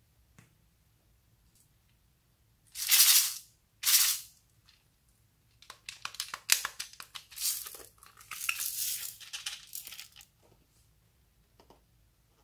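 Slime and the things being mixed into it being handled: two short hissing bursts, then a run of crackling, clicking and rustling from about six to ten seconds in.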